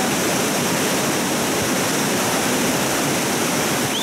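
Swollen mountain river in flood, muddy water rushing steadily at full force.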